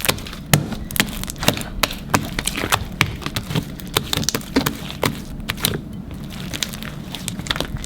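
Glossy homemade slime being squished and stretched by hand, giving off a continuous run of irregular sticky clicks and pops.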